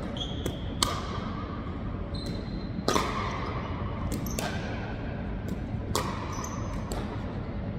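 Pickleball paddles striking a hard plastic ball and the ball bouncing on a hardwood gym floor: a rally of sharp pops roughly a second apart, each with a short echo in the big hall.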